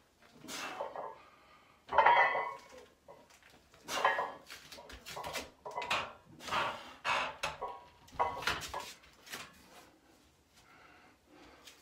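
A lifter's forceful breaths and grunts, repeated every second or so, while doing heavy barbell back squats. The loudest comes about two seconds in, and the bursts grow fainter near the end.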